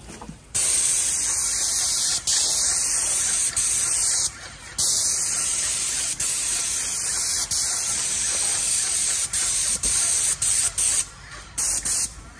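Airless paint spray gun with a wide 415 tip spraying primer onto brick: a loud steady hiss, cut by brief trigger releases, with several quick stops and starts near the end.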